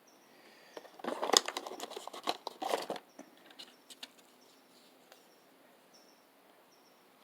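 Small clicks and rattles of tiny screws and phone parts being handled during reassembly, a dense cluster lasting about two seconds starting a second in. After that a faint high chirp repeats about once a second, and there is one sharp click at the very end.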